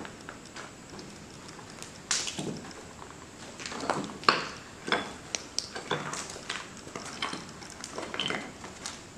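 Irregular knocks, scuffs and light clinks of someone moving about a littered room, with the sharpest knock about four seconds in.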